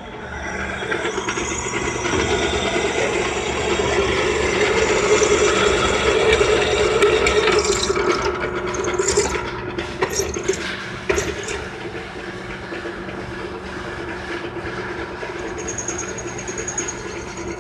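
Electric drill running, its bit cutting into steel tubing, growing louder as it bites, with sharp clicks and scraping in the middle; then the drill runs on more quietly and evenly.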